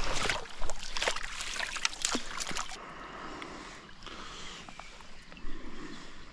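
River water sloshing and splashing close by, in irregular bursts for the first three seconds or so, then settling to a softer, steady wash.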